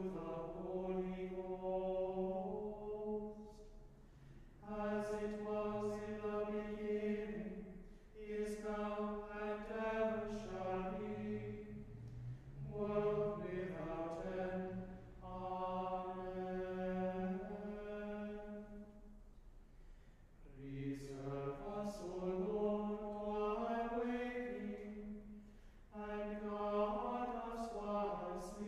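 Small choir chanting plainchant, mostly on one melodic line, in phrases of held notes with short breaths between.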